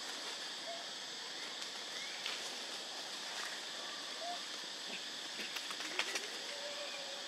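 Quiet outdoor forest ambience: a steady high hiss with a few faint short chirping calls, and some light clicks and taps about six seconds in.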